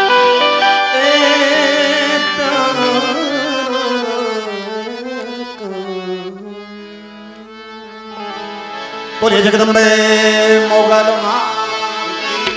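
Live Gujarati folk-devotional music: a melodic voice or harmonium line gliding over a held harmonium drone. It fades to a quiet stretch partway through, then comes back in full with tabla strokes about three quarters of the way in.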